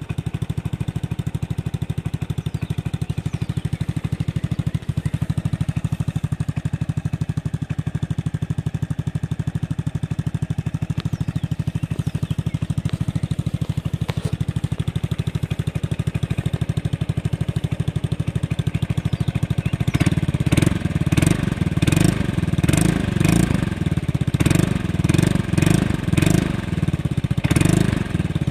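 1986 Honda Helix 250 scooter's single-cylinder four-stroke engine idling steadily through an EMPI stainless steel Supertrapp-style disc muffler fitted with 6 of its 12 discs. About twenty seconds in, it is blipped repeatedly, about ten quick revs over the last eight seconds.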